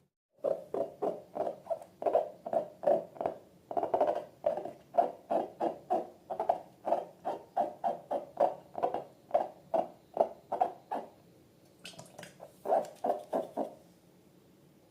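Slime being squeezed and worked by hand, making short squelching pulses about three a second. They run steadily for about ten seconds, stop, then come back briefly near the end.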